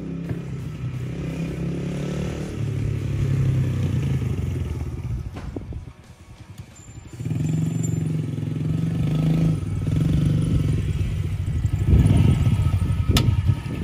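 2015 Yamaha TT-R110 youth dirt bike's small four-stroke single-cylinder engine running as the bike is ridden. The engine sound drops away briefly about six seconds in, then comes back and is loudest near the end as the bike pulls up close, with one sharp click shortly before the end.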